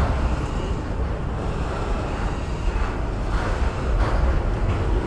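Freight train of autorack cars rolling past, steel wheels on rail giving a steady rolling noise, with wind on the microphone.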